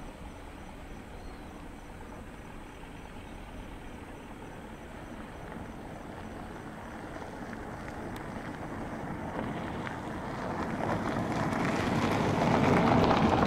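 Boeing 787-9 jet engines (twin Rolls-Royce Trent 1000 turbofans) at takeoff power during the takeoff roll, heard from behind: a low steady rumble that grows steadily louder from about halfway through and is loudest near the end.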